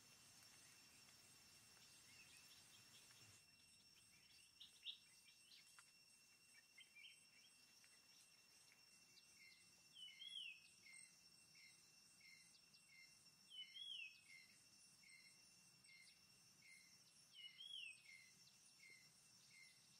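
Faint forest ambience: a steady high insect whine, and from about halfway on a bird calling, a run of short chirps repeated evenly, broken about every four seconds by a louder swooping call.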